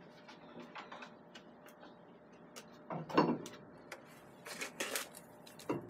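Light clicks and a few short knocks of steel parts being handled and set against a metal lathe, the loudest about three seconds in and near the end.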